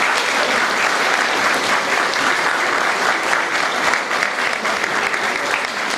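A seated audience applauding, many hands clapping at once in a dense, steady patter that eases slightly near the end.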